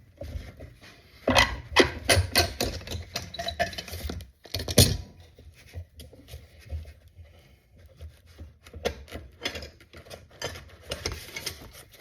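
Handling noises at a workbench: irregular clicks, taps and knocks of tools and clamps being moved, with one louder knock about five seconds in.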